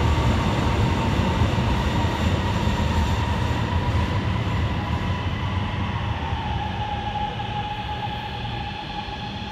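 Shanghai Metro Line 13 train pulling into the underground platform and slowing: a steady low rumble with a motor whine that dips slightly in pitch, the noise easing toward the end as the train comes to a stop.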